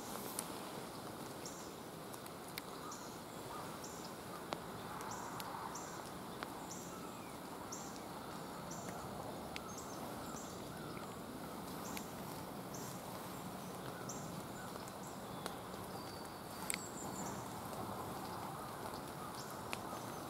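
Quiet woodland ambience with a short high-pitched chirp repeating about once a second, pausing for a few seconds near the end, and a couple of faint sharp clicks.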